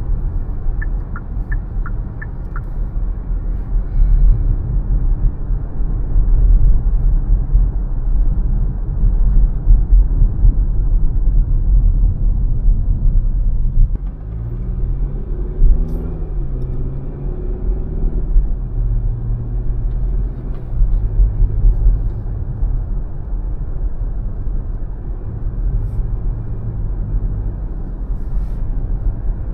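Car driving, with a steady low rumble of engine and road. About halfway through, a pitched engine note rises and falls for a few seconds, then holds steady.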